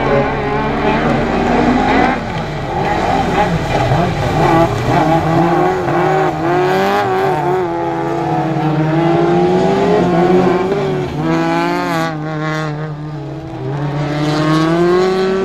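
Rallycross cars' engines revving hard through corners, the pitch climbing and dropping as the drivers accelerate, lift and change gear.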